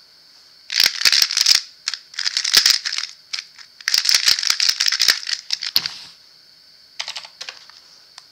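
Rapid plastic clacking and snapping of a Square-1 puzzle (an MGC with Angstrom maglev) being turned and sliced at speed, in quick flurries with brief pauses, lasting about five seconds. A few softer clicks follow near the end as the finished puzzle is handled and set down.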